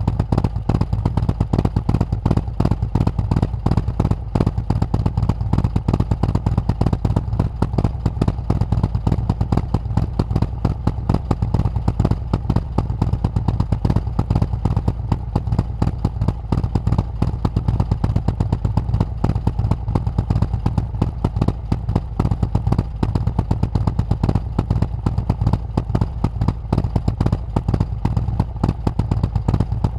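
Harley-Davidson Milwaukee-Eight V-twin, bored out with an S&S 124 kit, idling steadily through S&S MK45 4.5-inch slip-on mufflers with Cutlass end caps. Its even stream of exhaust pulses does not rise or fall.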